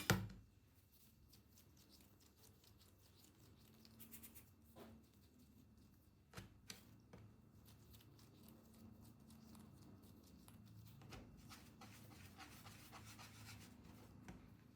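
Faint handling sounds at a kitchen counter: a sharp knock right at the start, then scattered light clicks and soft rubbing and scraping that grows steadier in the second half.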